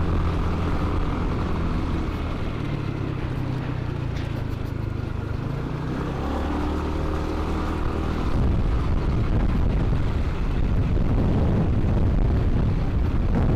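Yamaha NMAX scooter's single-cylinder engine running under way, its note shifting in pitch as the speed changes, with wind rumbling on the microphone that grows louder about eight seconds in.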